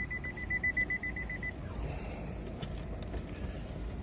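Rapid electronic beeping: about a dozen short, high beeps on one steady pitch, lasting about a second and a half, then stopping.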